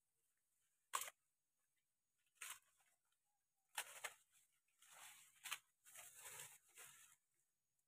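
Maize leaves being stripped by hand from the stalks and gathered into an armful: a sharp snap about a second in, then several bursts of rustling and tearing of dry and green leaves.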